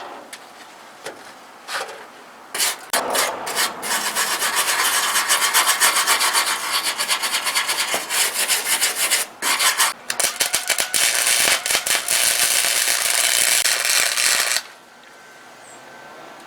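Welder arc running on sheet-metal floor pans, with a few short bursts early on and then a dense, steady crackle. The crackle breaks off briefly twice and stops abruptly about a second and a half before the end.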